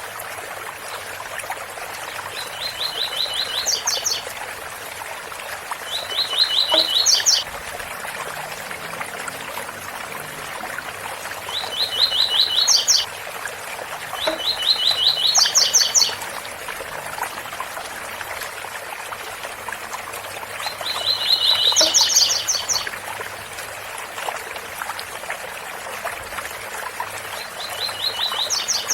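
Double-collared seedeater (coleiro) singing its 'tui tui bitola' song six times, each phrase a quick run of even notes ending in a few higher notes, over the steady rush of a waterfall.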